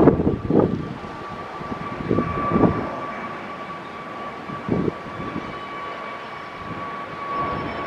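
Airbus A350-941 jetliner's Rolls-Royce Trent XWB engines running at low power as it rolls along the runway after landing, a steady whine. A few low gusty rumbles come and go over it.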